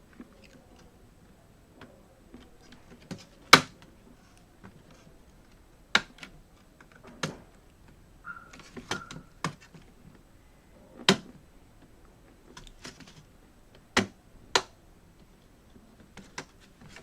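Irregular sharp plastic clicks and snaps as a laptop keyboard is worked loose from the top cover's heat-staked plastic studs, about ten of them spread unevenly, the loudest about three and a half seconds in. A brief faint squeak comes about eight seconds in.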